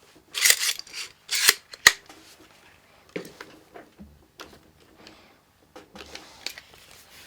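Handling sounds from a cordless crown stapler being checked over: rustling and sliding of plastic and staples, with one sharp click just before two seconds in and fainter clicks after.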